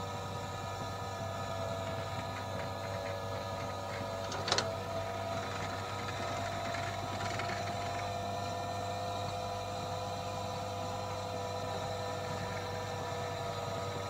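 Jukebox record-changing mechanism running: a steady motor hum and whir, with one sharp mechanical click about four and a half seconds in.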